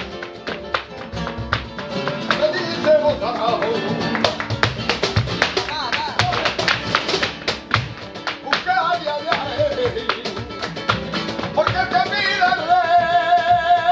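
Live flamenco por soleá: two Spanish guitars with cajón, palmas hand-clapping and the dancer's heel footwork striking sharply throughout. A singer's ornamented cante comes in a little past halfway and ends on a long held note.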